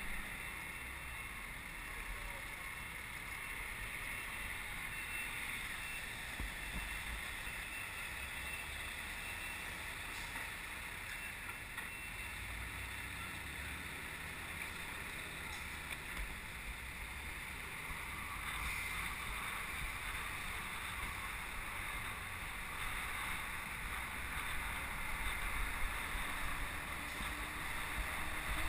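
Steady wind and road rush on a bicycle-mounted camera riding along a city street, with low rumble underneath. It grows a little louder over the last ten seconds.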